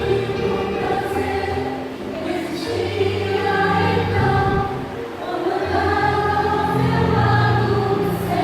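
Church choir singing a Christian worship song in Portuguese, with sustained low notes underneath.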